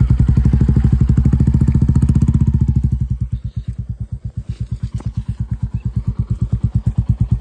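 Royal Enfield single-cylinder motorcycle running at low speed, its exhaust a steady, rapid thump. The beat softens about three seconds in, then builds again.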